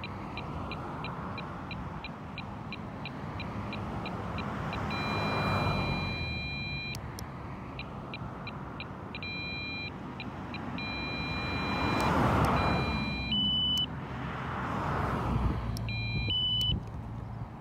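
Lidar speed gun beeping while aimed at oncoming traffic. It gives rapid short electronic beeps about three a second, then long held tones, then more short beeps, with two steady higher-pitched tones near the end. Passing cars swell in and out underneath.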